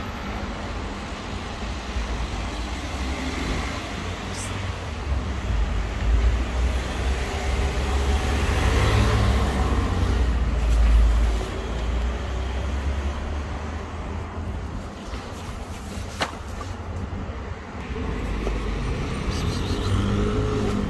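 Street traffic noise, with a vehicle passing that swells and fades about halfway through. A single sharp click comes later on.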